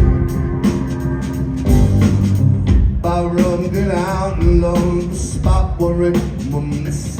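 Live rock band playing an instrumental passage with drums, bass, guitar and an organ-like keyboard, and a melody line that bends up and down in pitch through the middle.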